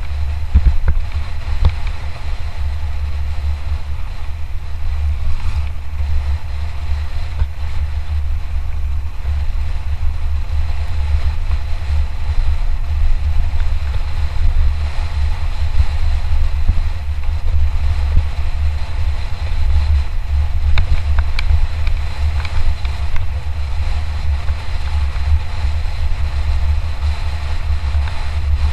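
Wind buffeting the microphone of a camera on a mountain bike descending at speed: a steady, loud low rumble, with scattered light clicks and rattles from the bike over rough ground.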